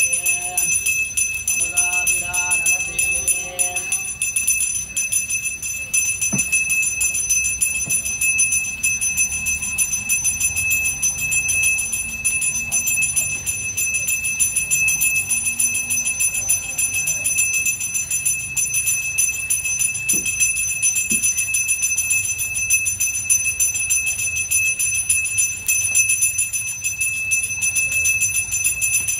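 Small hand-held puja bell rung rapidly and without a break, its few clear ringing tones held at an even level.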